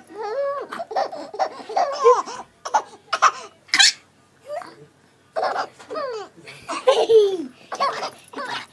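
Baby laughing in short bursts of rising and falling pitch, with a pause of about a second midway.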